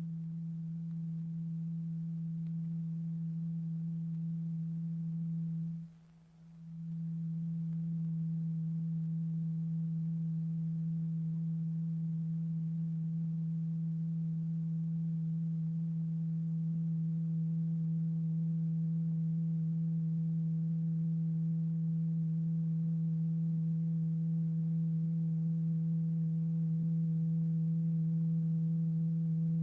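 A steady low pure tone with faint overtones, the oscillator note exciting a vibrating diaphragm covered in lycopodium powder. About six seconds in it dips out briefly, then comes back and holds level.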